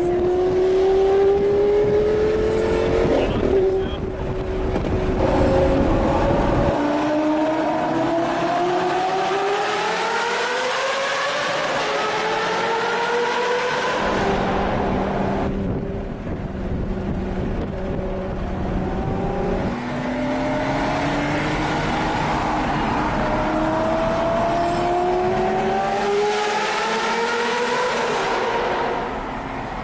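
Lamborghini Gallardo Superleggera V10 with a LOC aftermarket exhaust, revved hard through the gears several times. Each time its pitch climbs and then drops at an upshift. It is heard from a car following close behind, partly echoing off tunnel walls.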